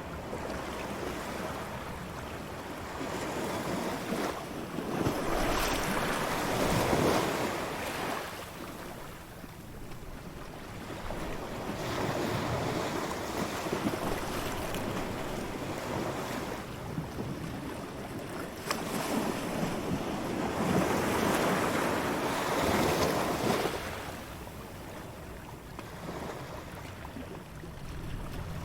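Waves breaking and washing up a beach: two big swells of surf, about a quarter of the way in and again past the middle, with softer wash between them.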